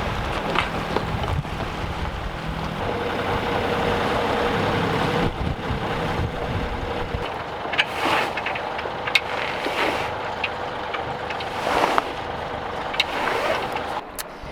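Sailboat under way, with wind buffeting the microphone and water rushing past the hull. An engine's steady hum runs underneath for the first seven seconds or so, and several short sharp knocks or splashes come later.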